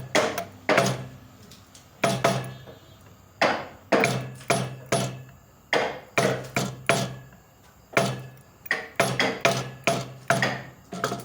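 A carving chisel struck again and again with a mallet, cutting into wood: sharp knocks with a short low thud, in irregular runs of two to four, about two a second.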